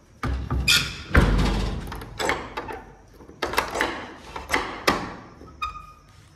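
A wooden door being handled and its metal slide bolt worked: a string of knocks and metal clacks, with a heavy thud about a second in and a brief squeak near the end.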